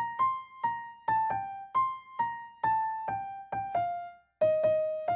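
Solo piano music begins after silence: a single-note melody of separate struck notes, about two a second, stepping mostly downward in pitch. It is a piano arrangement of an anime theme.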